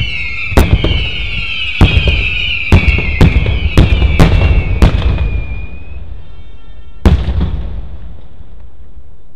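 Fireworks display of single-shot tubes and aerial shells going off in a quick series of sharp bangs, roughly one or two a second, over a continuous high whistle that slowly drops in pitch and fades out about six seconds in. One last bang comes about seven seconds in.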